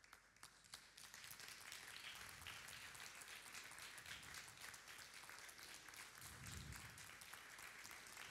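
Faint audience applause: a few scattered claps, filling in to steady clapping about a second in.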